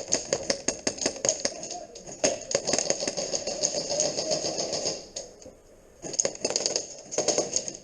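Airsoft guns firing in rapid, irregular clattering volleys, many shots a second. The firing stops for about a second around five seconds in, then resumes.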